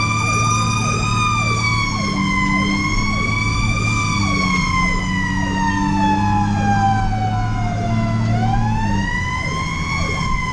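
Fire engine siren wailing, its pitch rising and falling slowly and unevenly, with one long fall through the middle and a rise near the end. The truck's engine runs steadily underneath.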